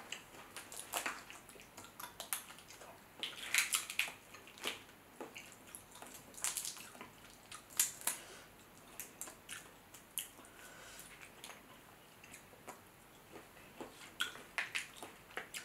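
Shells of boiled shrimp and crawfish crackling and snapping as they are peeled apart by hand, with wet, sauce-slick squishes. Quiet, scattered short crackles and clicks, denser about three to four seconds in and again near eight seconds.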